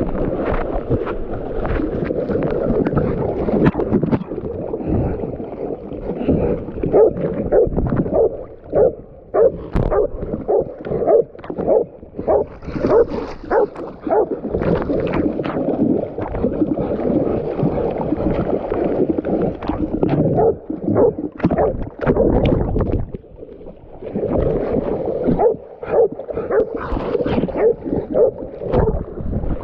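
Cur-type deer tracking dogs baying a wounded buck in a creek: rapid, repeated barking, a few barks a second with short lulls, over splashing water.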